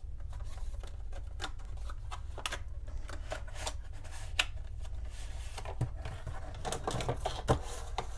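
Samsung Portable SSD T5 retail box being opened by hand: an irregular run of small clicks, taps and scrapes of the packaging, with a few louder knocks in the second half, over a steady low hum.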